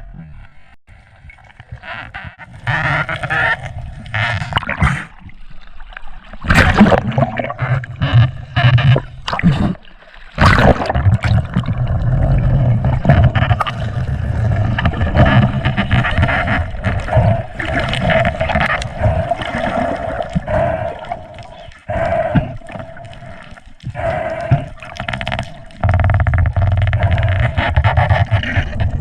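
Water splashing and gurgling around a spearfisher's camera as it moves through the water, in broken, irregular stretches, over a steady low hum.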